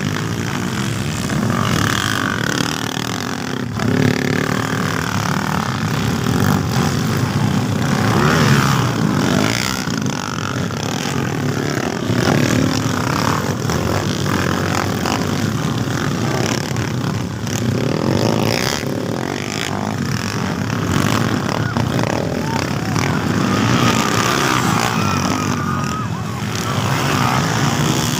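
Several motocross dirt bike engines racing on a dirt track, revving up and down in pitch as the bikes pass one after another.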